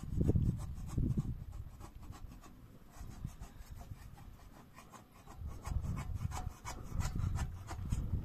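Wood fire crackling under an iron saj griddle, a scatter of short sharp pops and snaps, over a low rumble that is strongest in the first second and again from about five seconds in.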